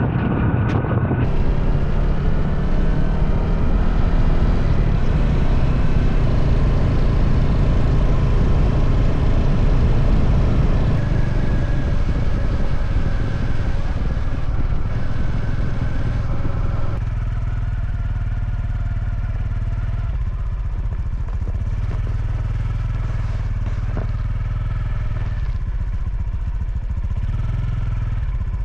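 Honda CT125 Hunter Cub's air-cooled 125 cc single-cylinder engine running steadily while riding. About two-thirds of the way through, the higher rushing noise drops away, leaving mainly the engine's low note.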